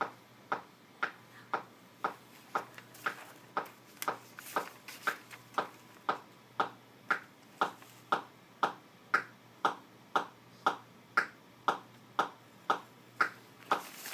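Steady ticking: sharp, evenly spaced clicks, about two a second.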